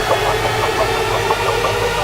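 A woodworking machine's electric motor running steadily, with a faint, regular ticking.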